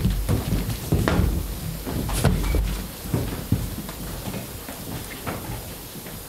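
A run of knocks and thumps with low rumble, loudest in the first three seconds and thinning out after: footsteps and set pieces being moved on a stage during a scene change.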